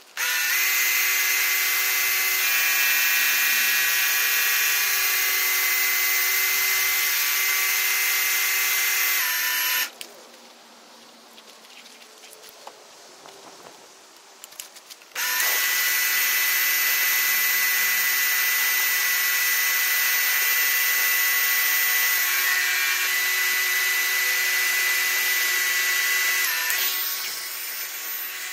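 Electric pressure washer running: its motor and pump give a steady whine over the hiss of the water jet. It cuts out about ten seconds in, starts again about five seconds later, and drops away near the end.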